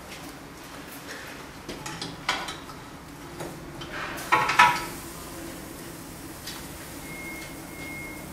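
Metal clatter of a loaded rotisserie spit being handled and set into the oven's spit mounts. There are a few light clinks first and a louder cluster of clanks about four and a half seconds in. A steady low hum follows, with two short high beeps near the end.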